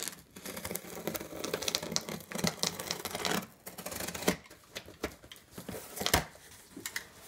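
Box cutter slicing through packing tape along the seam of a cardboard box: a run of scratchy scrapes and clicks. Cardboard flaps then rustle, with one sharp knock about six seconds in.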